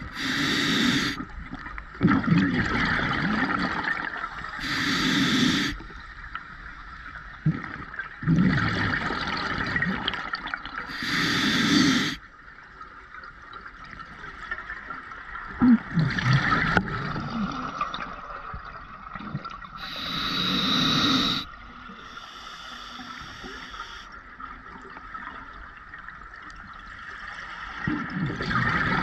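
Scuba diver breathing through a regulator underwater: a short hiss on each inhale, then a rush of exhaust bubbles on each exhale. About four slow breaths, several seconds apart.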